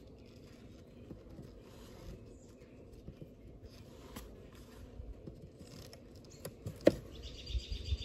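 Low steady hum of honey bees from an open hive, with one sharp click about seven seconds in, followed by a bird's rapid chirping trill near the end.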